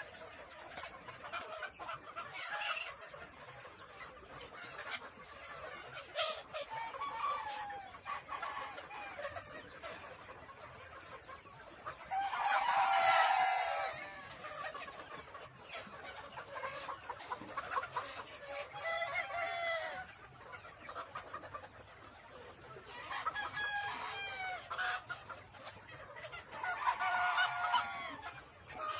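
A crowded flock of desi chickens clucking, with roosters crowing several times. The loudest crow comes about twelve seconds in.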